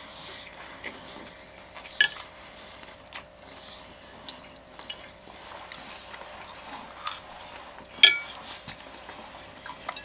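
Chopsticks clinking against a dish and plate while eating: two sharp ringing clinks, about two seconds in and near the end, the second the loudest, with scattered lighter taps between.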